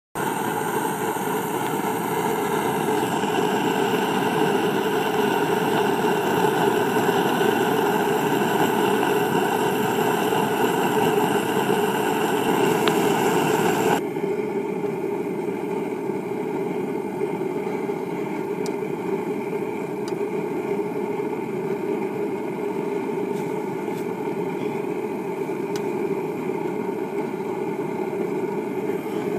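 Gas forge burner running with a steady rushing noise. About halfway through it turns duller and a little quieter.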